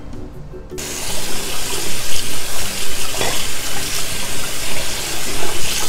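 Cold tap water pouring onto drained spaghetti in a colander, rinsing it. The steady splashing rush comes on suddenly a little under a second in.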